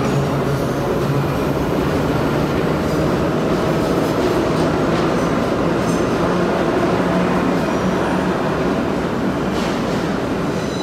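Vintage IRT Lo-V subway cars running through the station at speed: a steady, loud rumble of steel wheels on the track, with a few sharp clicks and faint high wheel squeals.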